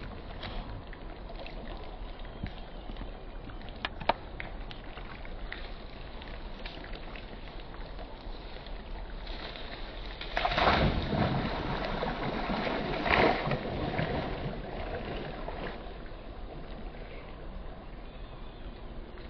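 Pond water sloshing and splashing as a young macaque dips into it from a log, louder for about a second and a half past the middle and again briefly a couple of seconds later, over a steady outdoor hiss.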